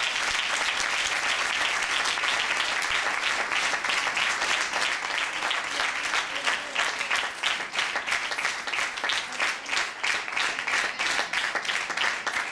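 Audience applauding: dense at first, then thinning into separate claps in the second half.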